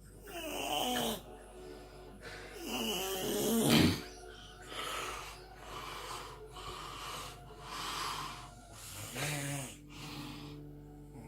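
A person snoring heavily. Two long, pitched, rattling snores come in the first four seconds, the second the loudest. They are followed by shorter breathy snores about once a second, and another pitched snore near the end.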